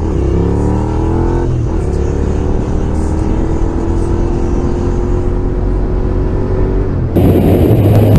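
Sport motorcycle engine accelerating through the gears. Its pitch drops at an upshift right at the start and again about a second and a half in, then climbs slowly in the higher gear. About seven seconds in, the sound cuts abruptly to a louder, rougher rush of noise.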